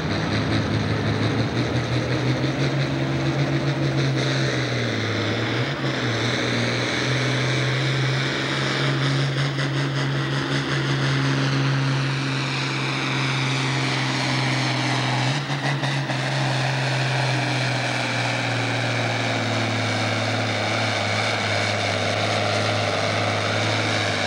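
International Harvester farm tractor's diesel engine running at full throttle while it pulls a weight-transfer sled, its steady note sagging briefly about five seconds in and again around fifteen seconds as the sled's load builds, with a high whine above it.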